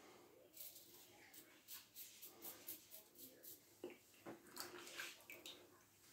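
Faint, quick scraping strokes of a Gillette New long-comb safety razor cutting stubble through shaving lather, many short strokes in a row.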